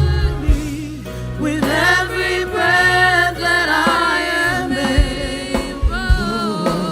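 Live church worship band music: a singer's wordless vocal runs glide over a sustained bass, with drum hits coming in about five seconds in.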